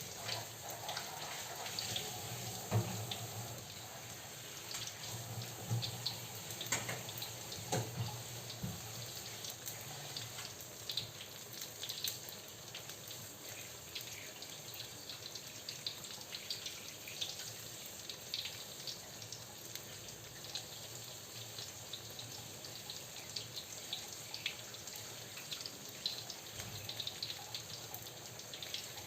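Flour-battered tempe frying in hot oil: a steady sizzle scattered with small crackles and pops.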